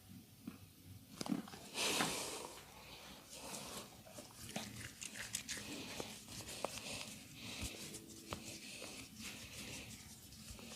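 Massage sounds: hands rubbing and scratching over the body in a continuous rustle, with a short loud hiss about two seconds in and a few faint clicks.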